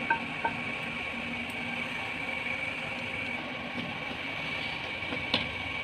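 Steady machine hum with a thin high whine, with a few light clicks near the start and one more about five seconds in.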